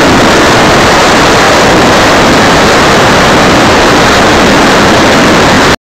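Steady, loud rushing noise from the nose-mounted camera's microphone on a large electric ducted-fan RC jet in flight: wind and twin 90 mm ducted fans blended into one even roar with no distinct tone. It cuts off abruptly near the end.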